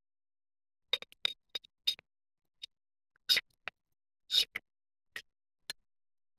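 A dozen or so short, irregular clicks and clinks from a metal Wolf flame safety lamp being handled: picked up and turned over, its parts and hanging hook knocking lightly.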